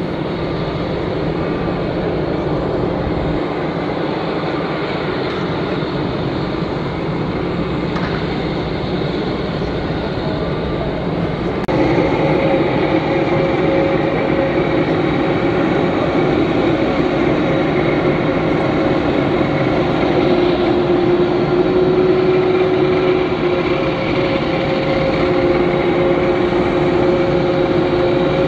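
Boeing 747-400 freighter's jet engines running on the ramp: a steady rumble with a whine over it. The sound gets louder and the whine stronger about twelve seconds in.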